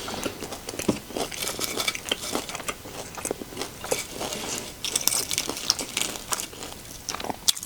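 A person chewing a mouthful of crunchy tortilla-chip nachos close to the microphone: a run of irregular crackling crunches, busiest about five seconds in.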